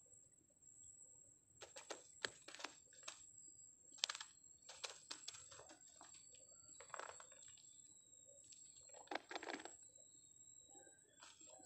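Faint scattered clicks and knocks from a person handling things on a dirt bank, coming in small clusters with the loudest about four and nine seconds in. A steady high thin whine runs underneath.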